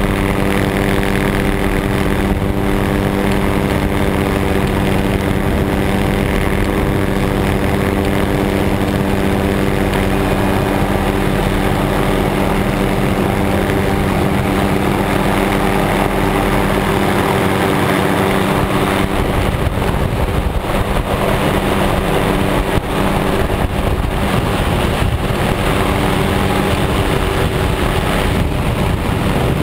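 Helicopter in flight: the steady drone of its engine and rotors, with a constant hum of several even tones under a rushing noise.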